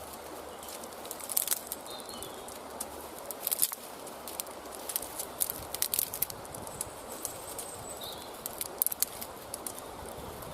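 Bone-dry kindling twigs being snapped and broken off by hand: irregular sharp cracks and crackles, some in quick clusters.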